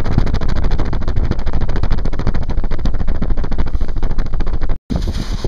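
Gusty storm wind buffeting the microphone: a loud, rumbling flutter that cuts out for an instant near the end.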